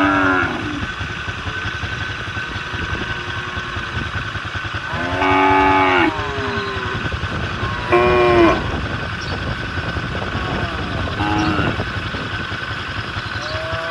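Cattle mooing four times, each an arched, pitched call, the longest about five seconds in, over an engine running steadily underneath.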